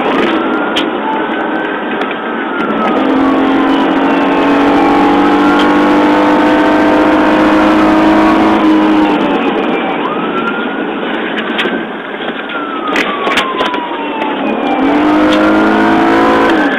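Police car siren wailing in slow rising-and-falling cycles, each a few seconds long, heard from inside a pursuing patrol car over the car's engine and road noise.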